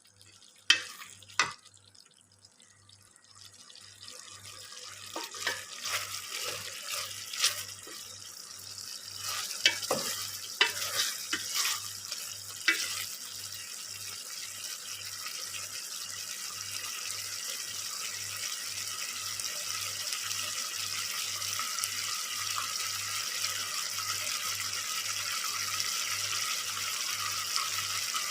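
Chicken feet frying in oil in a pan, the sizzle building steadily. Scattered knocks and scrapes of a cooking utensil come through the first half.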